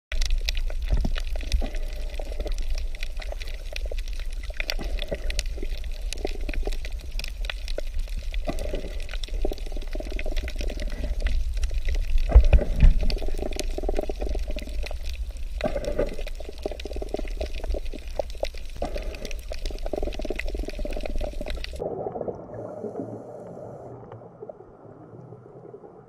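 Underwater sound on a coral reef: a steady low rumble with bubbling and a constant crackle of sharp clicks. About 22 seconds in it changes suddenly to a quieter, muffled bubbling.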